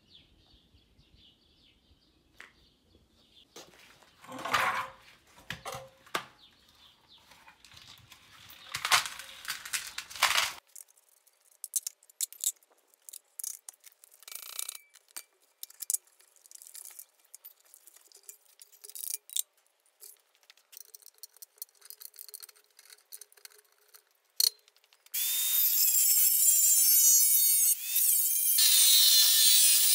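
Hand tools clanking and scraping on the metal fittings of an electric water heater as it is taken apart. Near the end a corded angle grinder starts cutting into the heater's steel shell, a loud steady whine that dips once briefly.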